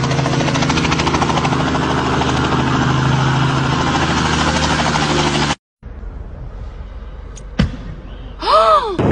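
Robinson-type light helicopter running close by, its two-bladed main rotor chopping rapidly over a steady engine hum. It cuts off abruptly about five and a half seconds in; a quieter stretch follows with a sharp crack and, near the end, a short tone that rises and falls.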